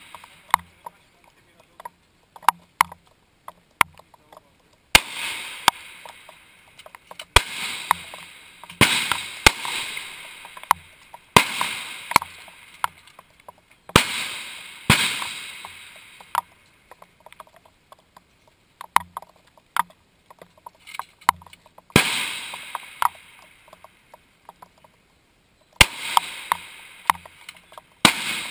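Centrefire rifle shots on a firing line: about ten loud cracks spread irregularly, each with a long echoing tail, some from neighbouring rifles, with smaller clicks of rifle handling between them.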